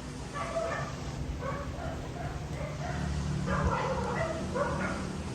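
A dog whimpering and yipping in a string of short, irregular calls.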